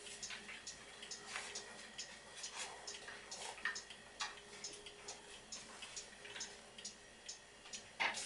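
Faint light clicks and taps of a glued wooden frame being picked up, turned over and handled, a few a second and unevenly spaced, over a faint steady hum.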